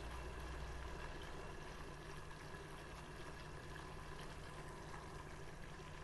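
Thick cream-based gravy simmering in a pan, a soft steady bubbling with faint small pops, over a faint steady hum.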